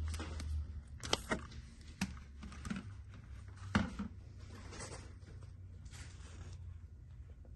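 Faint steady low hum of a running air-handler unit, with a few light knocks and rustles about one, two and four seconds in.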